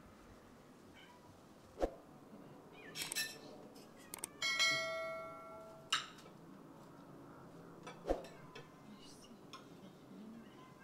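Tableware clinking as a meal is served: a few sharp knocks of a utensil on dishes, and one clink about four seconds in that rings out and fades over a second and a half.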